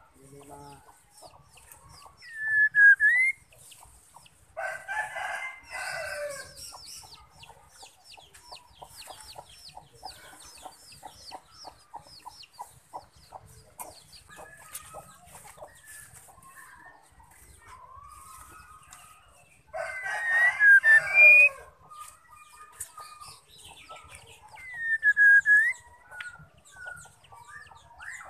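A rooster crowing twice, about 5 seconds in and again about 20 seconds in, each crow lasting about two seconds. Between the crows a caged white-rumped shama gives short, sharp swooping whistle notes, about 3 seconds in and again near the end, along with runs of fast ticking calls.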